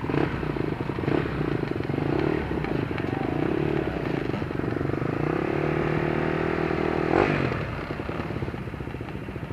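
Off-road dirt bike engine running at low revs, its pitch wavering gently as the throttle moves, with a brief louder burst about seven seconds in.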